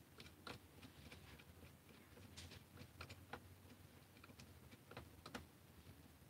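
Faint, irregular small clicks as a nut is fitted onto a screw on a plastic foam-dart blaster, over a quiet room hum.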